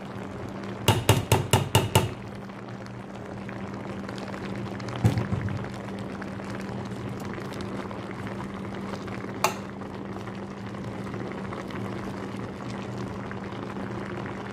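A metal mesh strainer rapped about six times in quick succession against the rim of a stainless steel pot, knocking parboiled rice out, then two more single knocks later on. A steady low hum runs underneath.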